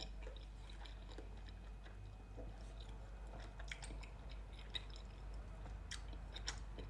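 A person chewing spicy instant noodles, with faint, irregular wet smacks and clicks of the mouth.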